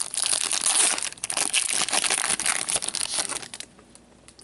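Foil wrapper of a trading card pack crinkling and crackling as it is torn open and crumpled in the hands, stopping about three and a half seconds in.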